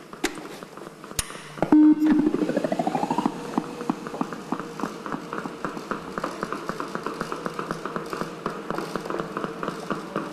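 Sexed robot powering up after its battery is swapped: a couple of clicks, then a short, very loud beep and a rising whine. Its 12-volt drive motors then run steadily with rapid, even ticking as the wheeled robot drives off.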